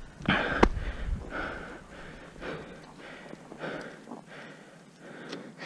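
A person breathing hard and fast close to the microphone, in a steady run of puffs about every half second. A sharp click comes about half a second in.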